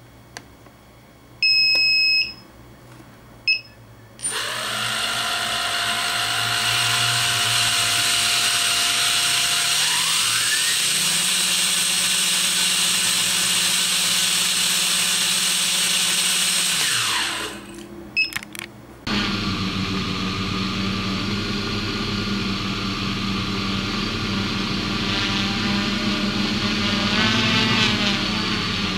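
Two short electronic beeps, then a brushless quadcopter motor with its propeller spins up for a balancing run and holds a steady whine. Its pitch rises about ten seconds in and it winds down near the end of the run. After a few clicks, the quadcopter's motors hum steadily together as it flies in a small room.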